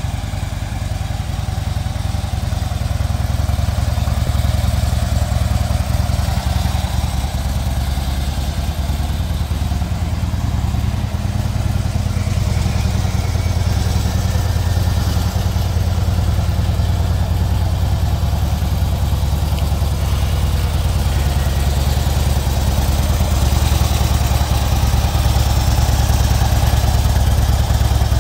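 Harley-Davidson Road King Classic's air-cooled V-twin engine idling steadily with a deep low rumble, growing a little louder toward the end.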